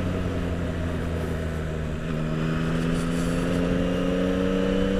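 Yamaha MT-09's three-cylinder engine running under way, heard through a microphone inside the rider's helmet over a steady hiss of wind. About two seconds in the engine note shifts, then rises slowly and steadily as the bike picks up speed.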